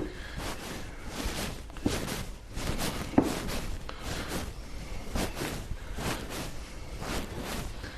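Hands mixing and kneading dumpling dough in a glass Pyrex bowl: irregular squishing and rustling, with a few knocks against the bowl, the sharpest a little after three seconds in.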